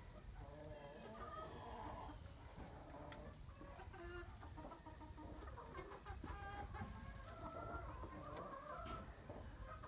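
Domestic fowl clucking: many short, soft, overlapping calls that go on throughout.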